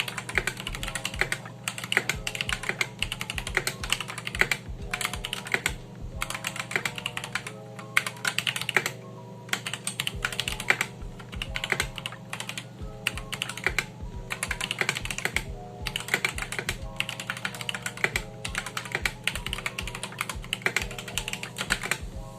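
Rapid continuous typing on an Akko 3061S World Tour Tokyo R2 mechanical keyboard with factory-lubed switches: a dense run of key clacks with a few brief pauses.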